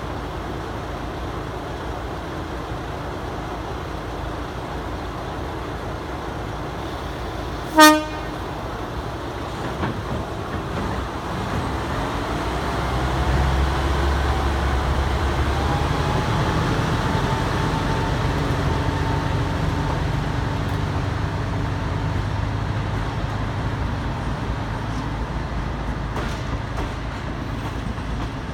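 Tsugaru Railway stove train departing: diesel engine running at idle, one short toot of the train horn about eight seconds in, then the diesel engine opening up with a rising whine and a heavier rumble as the old passenger coaches start rolling.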